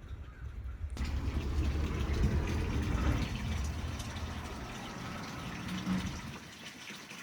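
Water rushing or gushing steadily, starting abruptly about a second in, over a low rumble.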